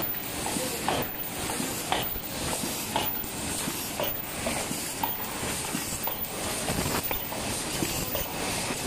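Paper cup forming machine running, with a regular mechanical clatter about once a second over a steady hiss.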